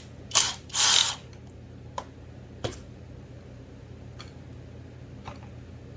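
Parts and hand tools being handled while a McCulloch 850 chainsaw is taken apart: two short scraping rattles near the start, then a few light, separate clicks of small metal pieces.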